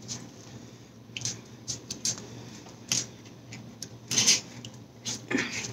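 Close-up eating sounds: a plastic fork picking at food in a cardboard tray, along with chewing, heard as scattered short clicks and scrapes. A louder one comes about four seconds in.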